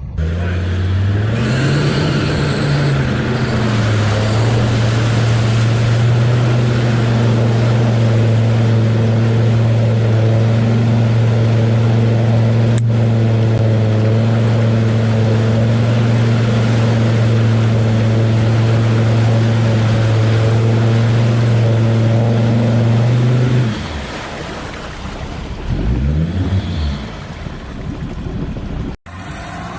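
Off-road 4x4's engine revving up, then held at high, steady revs for about twenty seconds with churning water, as it ploughs through deep water and mud. The revs drop off suddenly, followed by a short blip of the throttle.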